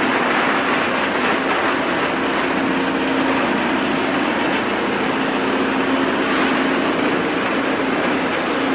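Steady, loud machine noise of a PET preform production floor with Husky HyPET 400 injection-moulding machines running: a constant hiss with a steady low hum underneath.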